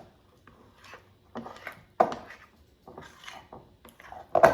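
A utensil scraping and knocking against a mixing bowl while stirring thick melted chocolate fudge mixture, in a few irregular strokes, the loudest near the end.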